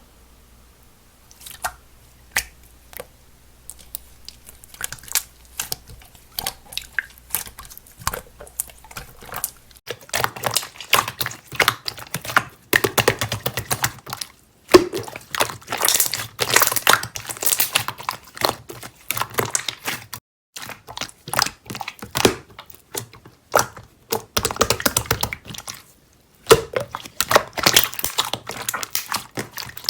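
Slime being played with by hand, making sticky clicks and little popping crackles. The clicks come one at a time at first; about a third of the way in they turn into dense, crackly squishing, with a few short pauses.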